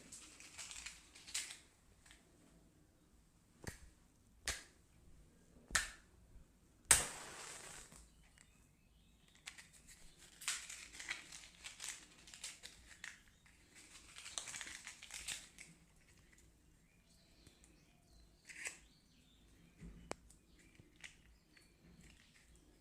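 Close rustling and rubbing of hands working over hair and skin during a head massage, with four sharp snaps or slaps, the loudest about seven seconds in and followed by a brief hiss.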